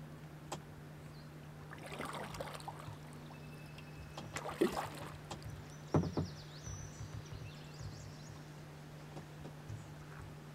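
Canoe paddling on a lake: scattered paddle splashes and knocks against the hull, the two sharpest around the middle.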